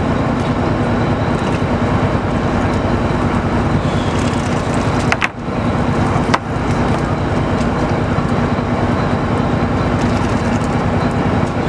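A fishing boat's engine running steadily with a low, even hum, with a brief break about five seconds in.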